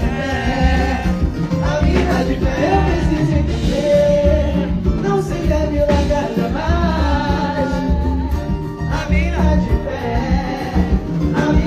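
Live pagode band playing with a singer, a steady bass beat under the sung melody.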